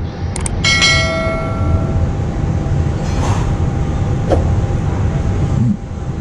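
Subscribe-button sound effect: a quick double mouse click, then a notification-bell chime ringing out and fading over about a second. Under it runs a steady low rumble.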